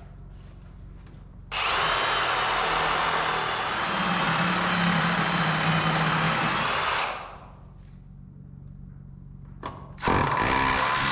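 A handheld power tool running steadily for about six seconds, starting suddenly and dying away as it stops, then starting up again near the end.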